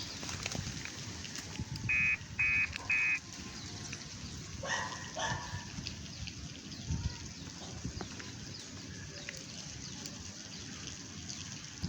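An unidentified animal calling: three short, loud, high-pitched notes about half a second apart, then two lower, rougher calls a couple of seconds later, over a steady faint hiss. This is the strange sound that frightened the angler into leaving.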